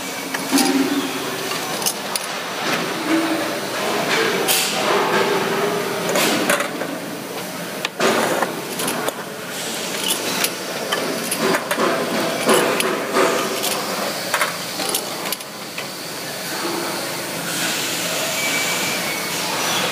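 Automatic can-filling line running: aluminium cans clinking and knocking together as they move through the machine, over a steady mechanical clatter and hiss from the filler.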